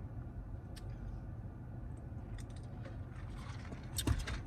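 Quiet chewing and small mouth clicks over a steady low hum, with a short louder mouth sound about four seconds in.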